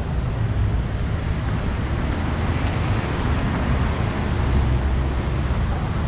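Steady street ambience: a wash of traffic noise with a low rumble of wind buffeting the microphone.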